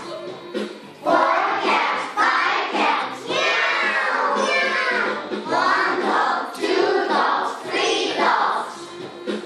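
A class of young children singing an English textbook song together in unison, coming in strongly about a second in.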